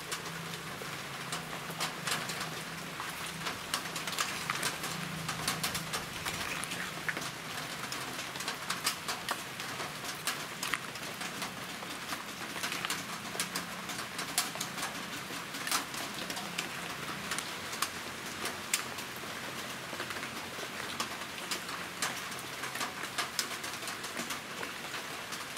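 Steel pot of cassava stew in coconut milk simmering on a gas stove, with many small irregular pops and bubbling as it comes to the boil. A low steady coo-like hum sits beneath.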